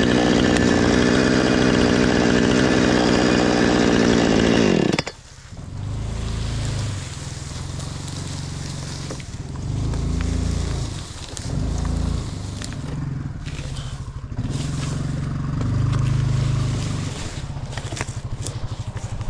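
Husqvarna chainsaw running at full throttle, cutting through a pine trunk; its pitch drops and it stops about five seconds in. After that a UTV engine runs low, revving up and down several times.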